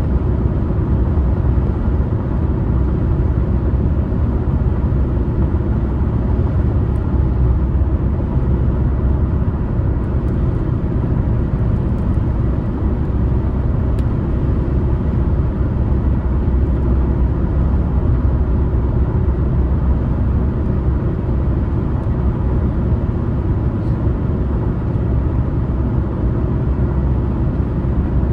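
Car driving at highway speed: steady low rumble of engine and tyres on the road, unchanging throughout, with a few faint ticks.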